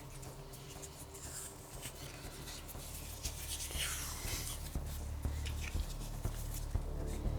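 Scratchy, rubbing hand-tool strokes on a workpiece, with scattered light clicks and a faint low hum underneath.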